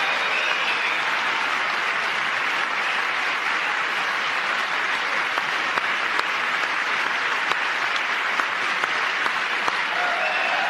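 Large audience applauding steadily in a long, sustained ovation.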